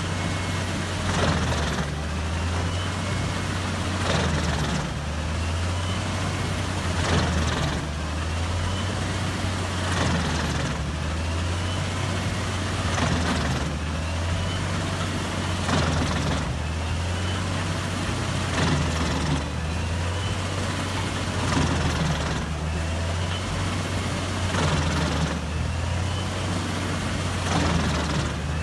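Doppstadt DH 812 mobile drum wood chipper running under load: a steady low engine drone, with a rushing burst every two to three seconds as wood passes through the chipping drum.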